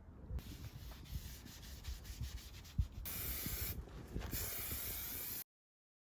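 Abrasive rubbing on the rusty steel of a Beetle front axle beam, like sanding: lighter scraping with small knocks at first, then two longer, louder rubbing strokes, after which the sound cuts off abruptly about five and a half seconds in.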